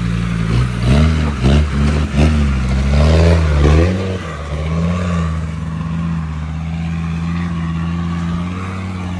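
Land Rover Discovery 2's engine revving up and down in quick rises and falls as it crawls over a cattle grid, then running at a steady note as the vehicle pulls away up the track.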